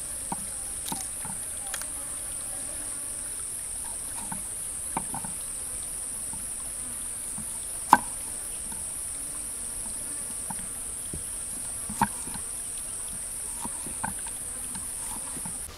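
Knife chopping lettuce and slicing a tomato on a wooden cutting board: scattered knocks of the blade on the board, the loudest about halfway through and again about three quarters through. Behind it runs a steady high-pitched drone of insects.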